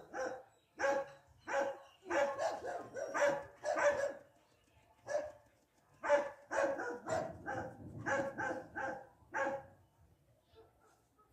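Dog barking over and over in quick runs of short, sharp barks, with a couple of brief pauses between the runs.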